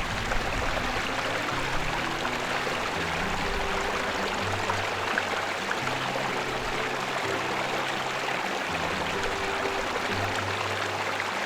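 Steady rush of a mountain stream running, with background music playing over it.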